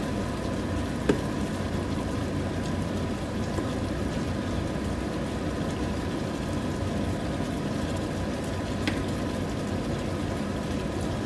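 Chicken afritada, a tomato-sauce stew, simmering in a frying pan: a steady bubbling hiss over a constant hum. There is a sharp click about a second in, and a spatula stirs the pan later on.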